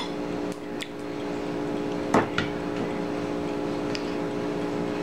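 A metal ladle and spoon clinking and knocking against a ceramic bowl as stew is ladled onto rice: a few light knocks, the loudest a little after two seconds in. A steady hum runs underneath.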